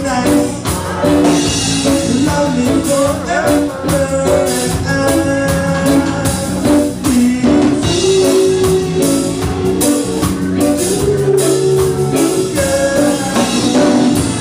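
Live band playing an upbeat rock song, with a singer over drums.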